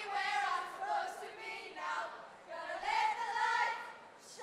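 A group of young women's voices singing together in unison, in phrases with a short break between them.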